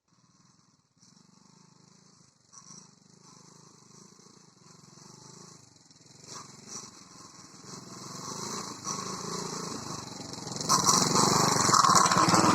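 Alpha 110cc moped's single-cylinder four-stroke engine running, growing steadily louder and then much louder about eleven seconds in.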